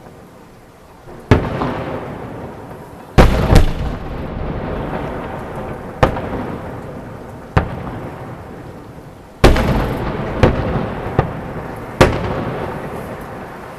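Fireworks salute shells bursting overhead: about nine sharp bangs at irregular intervals, each trailing off in a long rolling echo, the loudest pair a few seconds in and another near the middle.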